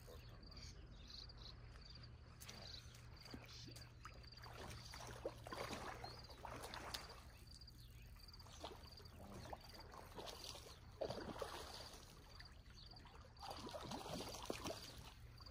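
A hooked fish splashing and thrashing at the water's surface near the shore, in three bursts of splashing. A faint, high insect chirp repeats evenly throughout.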